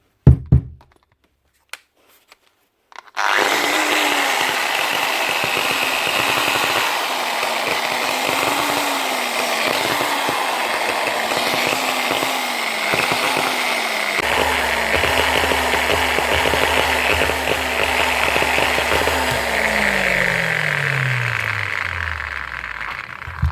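Bosch GWS9-115 4½-inch angle grinder: a sharp click, then the motor starts and runs unevenly, its speed surging up and down instead of holding steady, before steadying and near the end winding down. It is not running on full power because its carbon brushes are stuck with fiberglass dust.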